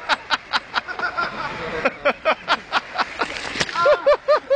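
Hard laughter in quick breathy bursts, about four a second, turning into a few voiced 'ha-ha-ha' cries near the end.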